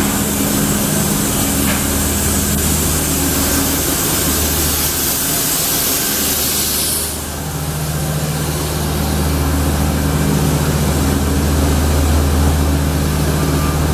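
A heavy engine running steadily, a low hum with a second tone above it, and a loud spraying hiss over it that cuts off abruptly about halfway through.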